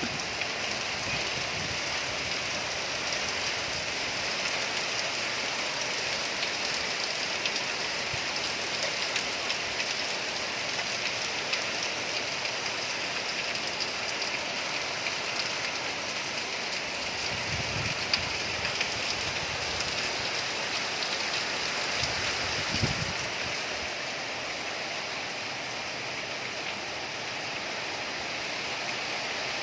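Heavy rain falling steadily in strong wind, a dense even hiss, with a few faint low thumps about halfway through; the rain eases a little near the end.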